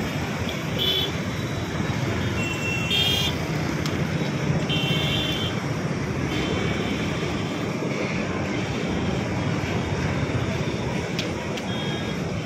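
Long freight train of covered boxcars rolling past steadily, a continuous noise of wheels running on rail.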